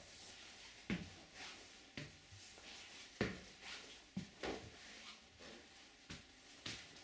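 Footsteps on a hard indoor floor: irregular knocks about once a second, a few closer together.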